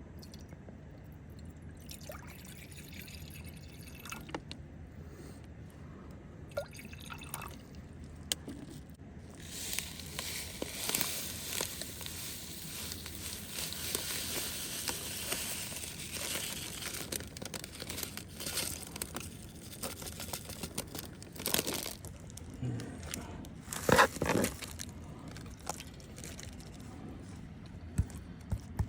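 Steak sizzling over hot charcoal in a small fire pit: a steady hiss with scattered pops and crackles from fat and the coals, loudest in the middle. A few sharper cracks come near the end.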